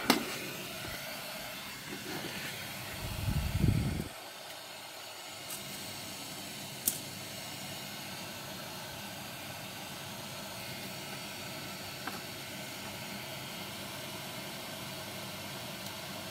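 Steady airy hiss of a hot-air rework gun blowing. A sharp knock at the start as the gun is picked up, a loud low rumbling clatter about three to four seconds in as it is handled, and a few light ticks after that.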